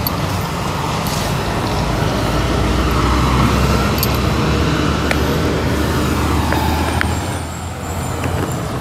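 Road traffic with a heavy vehicle's engine running, a steady low rumble that grows to its loudest around the middle and drops off near the end.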